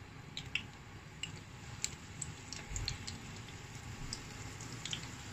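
Spring rolls frying in hot oil in a pan: a soft sizzle with scattered small pops and crackles, and a low bump about three seconds in.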